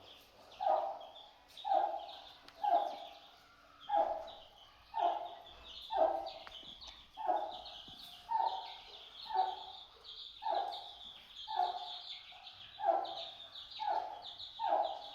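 Chicken calling over and over, a short call about once a second, with high chirps running alongside.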